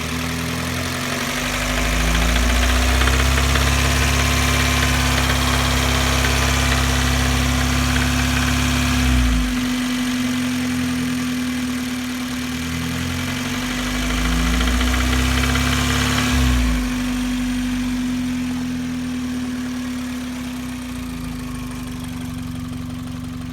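A 2004 Hyundai Elantra GT's Beta II 2.0-litre four-cylinder engine is revved up and held twice, dropping back to idle each time, over a steady whine. It makes a loud ticking that the owner suspects comes from the hydraulic lash adjusters, or possibly from the alternator.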